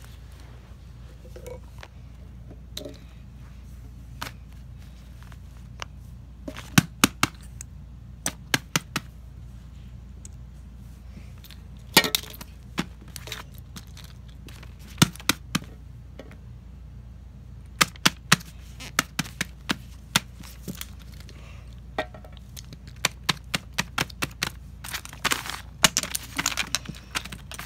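Irregular sharp clicks and taps of plastic fidget toys being handled and set down on a paper board, some coming in quick clusters, over a steady low hum.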